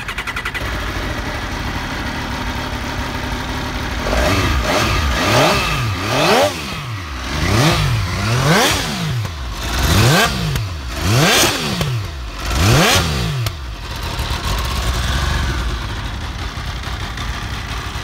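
MV Agusta F3 675's inline three-cylinder engine starts up and idles. It is then blipped about seven times in quick succession, each rev rising and falling sharply, before settling back to idle.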